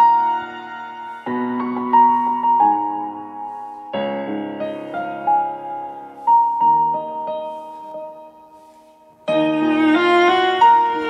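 A song playing from a portable Bluetooth speaker: slow instrumental music of piano chords, each struck and left to ring. It fades down just before a fuller, louder passage comes in about nine seconds in.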